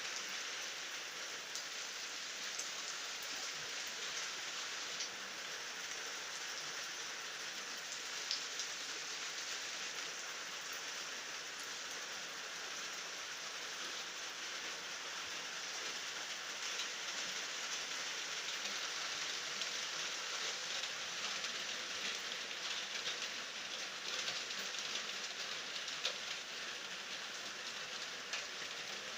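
Steady rain falling, with no thunder: an even hiss of rain with scattered individual drop ticks standing out now and then.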